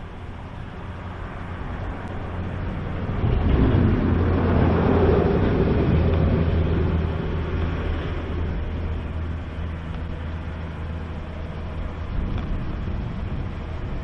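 A motor vehicle passing by: engine hum and road noise swell, are loudest about four to seven seconds in, and then fade away.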